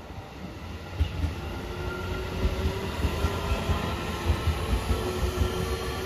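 JR Central 313 series electric train passing close by. Its wheels knock over the rail joints in a steady, rhythmic run starting about a second in, over a steady whine.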